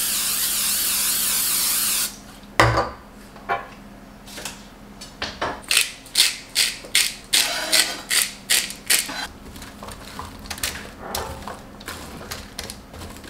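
Aerosol olive oil cooking spray hissing steadily for about two seconds, then a single knock. A salt grinder then turns in a quick run of sharp crunching clicks for a few seconds, followed by softer clicks and scraping as a metal spoon stirs diced sweet potatoes in a foil-lined pan.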